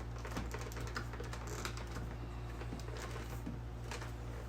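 Scattered light clicks and taps from hard plastic helmets being handled, over a steady low hum.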